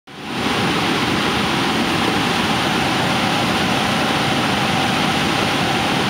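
Whitewater cascade of a mountain river rushing over boulders: a loud, steady, even rush of churning water that swells in over the first half second.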